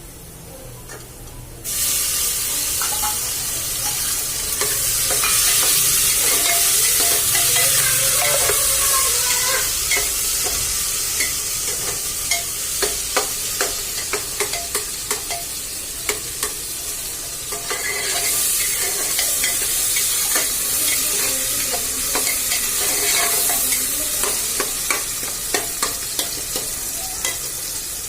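Food starts sizzling loudly in hot oil about two seconds in and keeps frying. A spoon stirs and clicks against the pot, most often in the middle and near the end.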